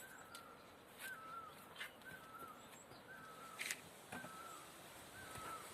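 A bird calling a short whistled note about once a second, with a few faint clicks in between.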